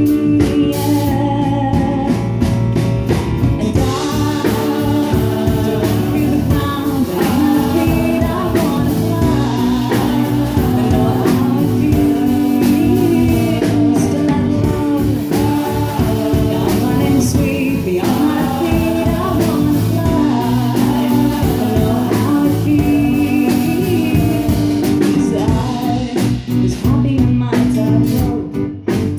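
Live pop song: a woman singing lead over strummed acoustic guitar and bass guitar.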